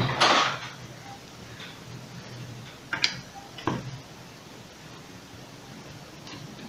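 A metal hair clipper and a screwdriver handled on a workbench: a short clatter at the start, then two sharp taps about three seconds in, over a faint steady hum.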